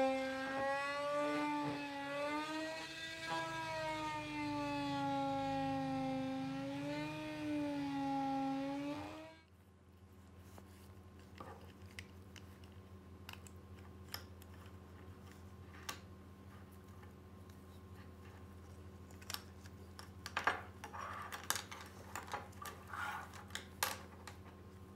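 Small electric screwdriver running with a whine whose pitch wavers up and down as it backs out the screws in a die-cast toy car's base. It stops about nine seconds in, and then there are faint scattered clicks and taps of small parts being handled, most of them near the end.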